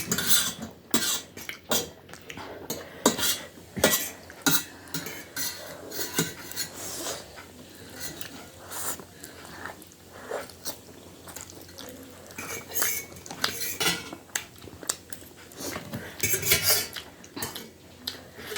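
Eating utensils clinking and scraping against a dish, in many short, irregular clicks, while spicy instant noodles are eaten.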